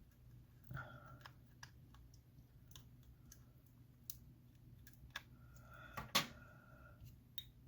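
Faint, irregular small clicks and ticks of a pry tool working around the edge of an iPhone X screen, prying the display away from its adhesive, with a slightly louder click about six seconds in.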